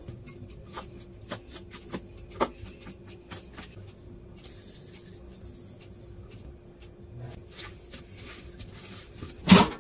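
Scattered light clicks and taps of food and utensils being handled in a kitchen, thick at first and then sparser, over a faint steady hum.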